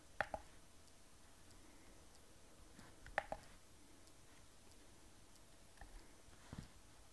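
Sharp clicks from a hand working the controls of a small diagnostic device: a quick double click just after the start, another about three seconds later, and a softer cluster of clicks near the end.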